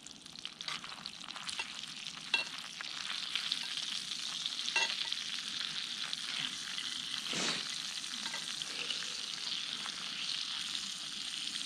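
Rabbit pieces coated in pancake batter frying in oil in a small cast iron pan, with a steady sizzle. A metal utensil scrapes and taps against the pan now and then as the meat is moved.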